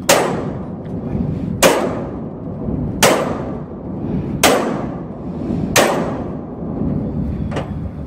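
Hammer blows on a steel intermodal barrier box (WAR-LOK IR-20) locking a shipping container's doors: five hard metallic strikes about every 1.4 seconds, each ringing briefly, then a lighter knock near the end.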